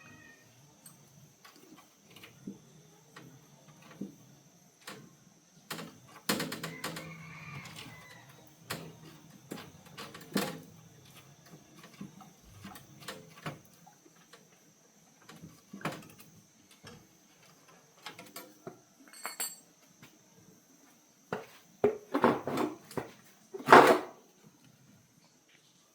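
Intermittent clinks, taps and knocks of hand tools and metal parts being handled, with a louder burst of clattering near the end, over a faint steady high whine.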